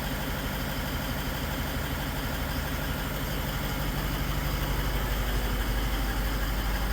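Toyota Land Cruiser 200's 4.5-litre V8 diesel idling steadily, heard close up, with an extraneous noise that the owner is trying to track down. It gets slightly louder from about four seconds in.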